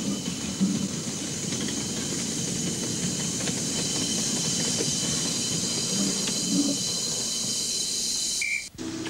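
7¼-inch gauge miniature steam locomotive hissing steadily as it works its train, with a low rumble and a few light clicks. Near the end the sound cuts off abruptly.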